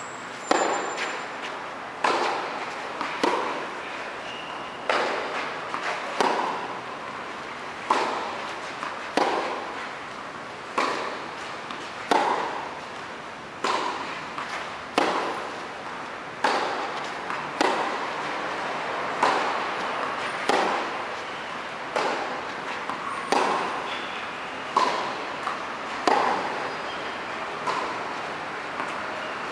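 Tennis balls struck by racquets in a steady baseline rally, a crisp hit about every one and a half seconds, each followed by a short echo in the covered hall.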